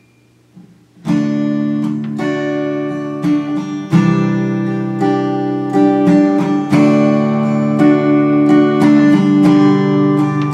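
Martin acoustic guitar playing the solo intro of a song: chords strummed about one and a half times a second and left ringing, starting about a second in after a brief quiet.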